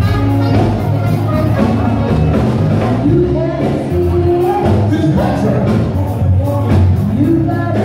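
Live band playing amplified dance music through PA speakers: a singer's melody over a steady bass line and drums.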